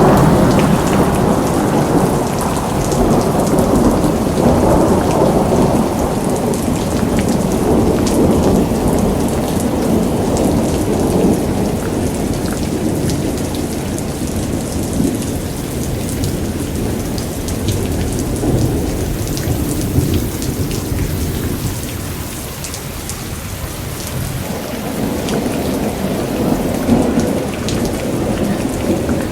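Heavy rain pouring steadily, with a deep rumble underneath.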